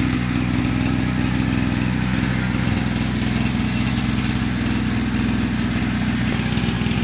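Small engine of a 30-litre motorized sprayer running steadily at an even speed.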